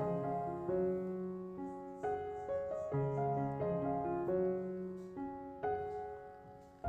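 Background piano music: gentle notes and chords struck about once a second, each left to fade.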